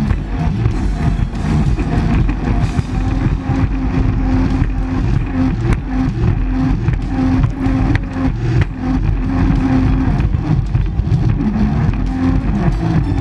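Jet ski engine running, with music playing over it.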